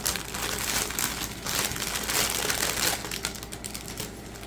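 Small plastic bags of diamond painting drills being handled, crinkling in quick crackly bursts that ease off near the end.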